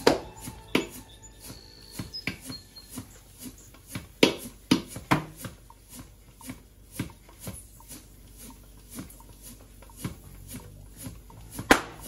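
Topeak JoeBlow floor pump being stroked by hand to inflate a tubeless mountain bike tire: a series of short, sharp pump strokes at an uneven pace, over faint background music.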